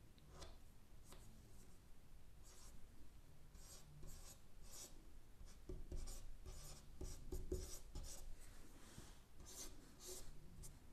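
Chalk writing on a board: faint, irregular short scratchy strokes as words are written out, a little louder and busier in the second half.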